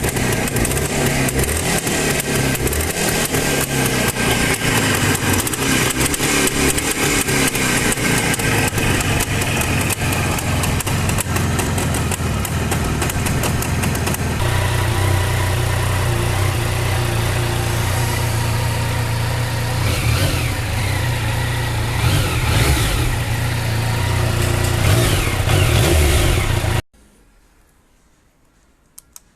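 Motorcycle engine running loudly, its sound changing abruptly about halfway through, then revved up and down several times before it cuts off suddenly, leaving a quiet stretch with two small clicks.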